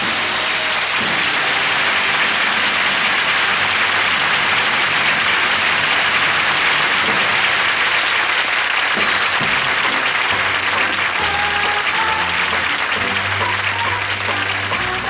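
Studio audience applauding steadily, with the house band's playoff music under it.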